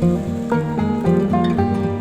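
Background music: plucked acoustic guitar melody over sustained chords.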